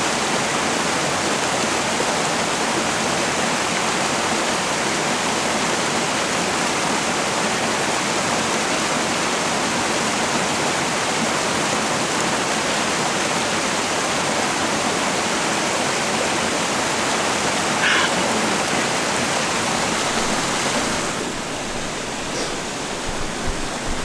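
A small stream's waterfall rushing steadily over rocks, a constant hiss of falling and splashing water; it drops a little in level about three seconds before the end.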